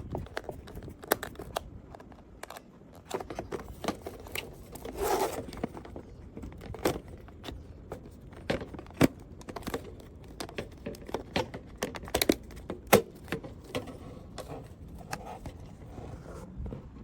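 Hands handling small hard objects: irregular sharp clicks, taps and scrapes, with a short rustle about five seconds in.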